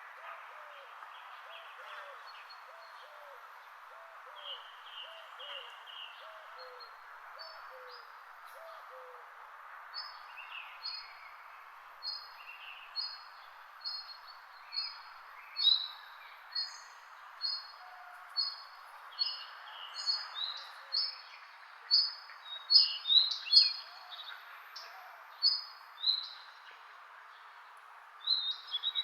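Several birds calling: a low, repeated call for the first nine seconds or so, then quick high chirps about one or two a second that grow louder in the second half, over a steady background hiss.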